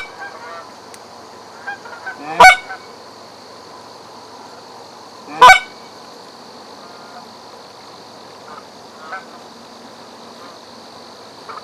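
Canada goose honks: two loud, close honks about three seconds apart, with fainter honks in between.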